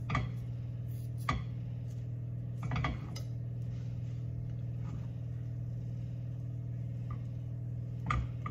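A plastic spoon knocking and scraping against a glass bowl as boiled potato chunks are tossed: a few separate clinks, several seconds apart, over a steady low hum.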